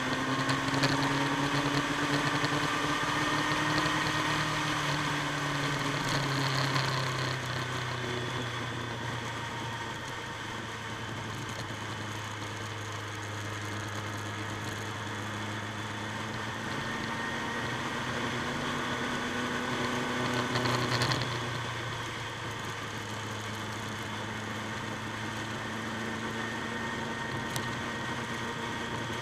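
Motorcycle engine running steadily while riding along, with wind and road noise. The engine note drifts gently with the throttle and eases off twice, about a quarter of the way in and again about two-thirds through.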